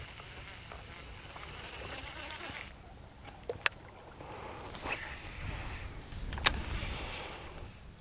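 Outdoor water-and-wind noise around a skiff on shallow marsh water, broken by two sharp clicks, one about three and a half seconds in and a louder one about six and a half seconds in.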